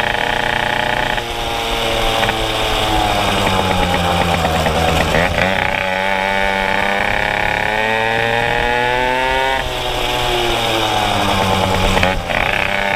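Two-stroke moped engine under way, its buzzing revs climbing, dropping off sharply and climbing again several times as the rider accelerates and eases off.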